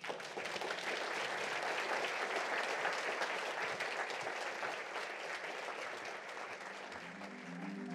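Audience applauding, a dense even clapping that slowly thins out. Mallet-percussion music, like a marimba, comes in near the end.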